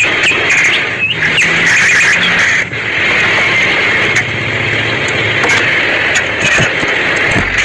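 Electric arc welding: a steady crackling hiss from the arc, dotted with sharp pops.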